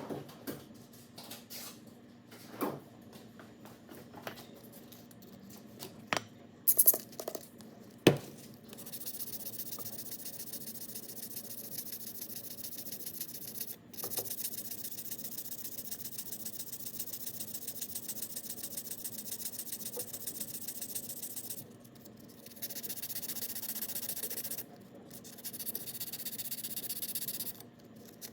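Fine-grit sandpaper, 800 grit, rubbing down a cured JB Weld patch on an outboard propeller shaft's seal surface in three long steady stretches, after a few seconds of clicks and knocks as parts are handled.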